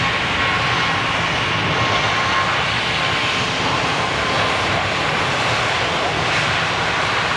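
Boeing 737-800's twin CFM56-7B turbofans at takeoff thrust during the takeoff roll: a loud, steady jet roar with a faint whine that fades a few seconds in.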